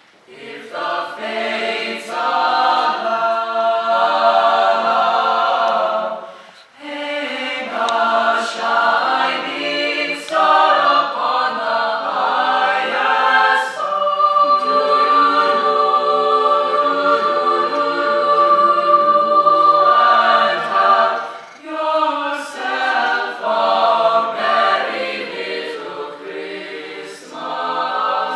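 A high school jazz choir of mixed young voices singing a cappella, in phrases with short breaks between them. About halfway through, a chord is held for about seven seconds.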